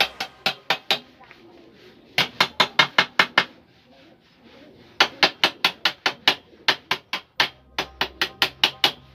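Rapid metal-on-metal tapping, about six sharp, ringing strikes a second in four runs with short pauses: a chipping hammer knocking slag off fresh welds on a steel chair frame.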